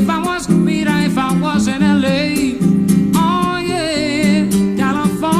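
Nylon-string classical guitar playing a melodic lead over bass notes, with bent, wavering notes in the melody and no words sung.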